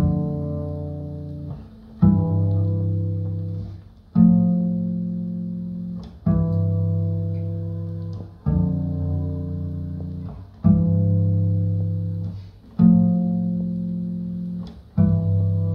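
Slow jazz double bass played pizzicato: a deep plucked note about every two seconds, each ringing out and fading before the next. The music is a vinyl record heard over hi-fi loudspeakers in the room.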